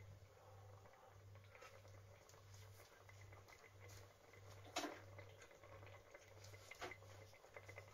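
Near silence: faint room tone with a low hum pulsing about twice a second, scattered faint ticks, and two light clicks about five and seven seconds in.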